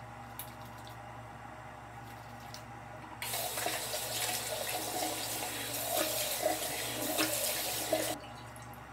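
Bathroom sink tap turned on about three seconds in, water running into the basin with splashes as a face is rinsed, then shut off abruptly near the end.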